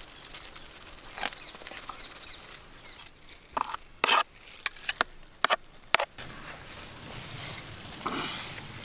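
A spoon scraping and knocking against baking pans while white sauce is spread over lasagna sheets, with a quick run of sharp clicks and clinks around the middle.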